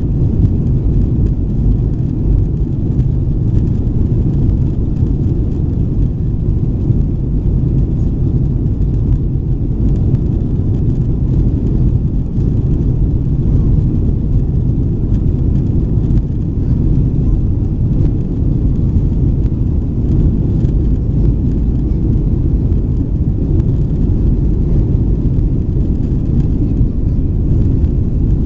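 Steady low rumble inside the cabin of a Boeing 737-900ER taxiing, its CFM56-7B engines at idle and the airframe rolling over the taxiway.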